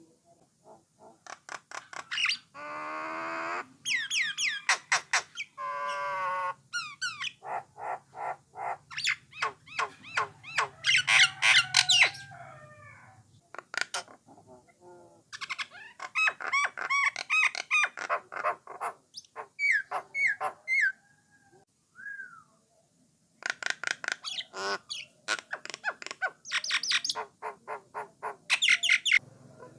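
A Jalak Nias (jalak coklat) starling singing a long, varied song of rapid chirps, harsh squawky notes and whistled glides, with short breaks about halfway through and again a little later.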